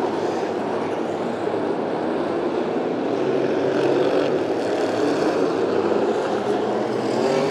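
Hobby Stock dirt-track race cars' engines running at speed as the leaders lap the track, a steady engine noise that swells slightly near the end.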